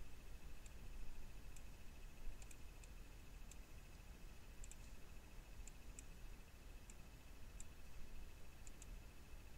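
Faint, irregular computer mouse clicks, about one or two a second, over a low hum and a faint steady high whine.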